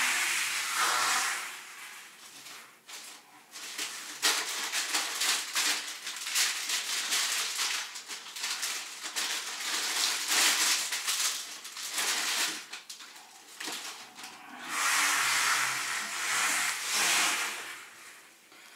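Plastic shopping bags and food packaging rustling and crinkling as groceries are taken out and handled, in uneven spells with a couple of quieter pauses.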